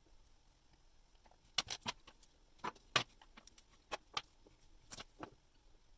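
Irregular small sharp clicks and taps of watchmaking tools being handled at the bench, about ten of them, scattered between about one and a half and five seconds in.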